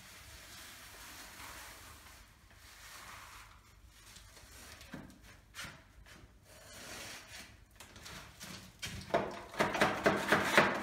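A hand tool scraping and rubbing over a plastered wall, faint and intermittent at first, then a loud run of rapid short back-and-forth strokes near the end.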